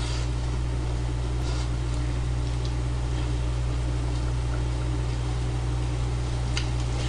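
Steady low hum throughout, with a few faint, brief smacks of chewing as spicy pig's feet are eaten.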